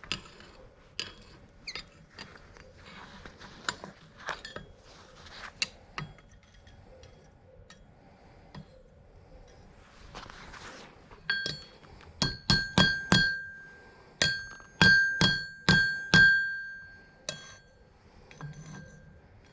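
Hand hammer striking hot steel on an anvil while forging a miniature hatchet from a carriage bolt: about a dozen blows in quick groups in the second half, each leaving a high ring. Light clinks and taps of metal being handled come before them.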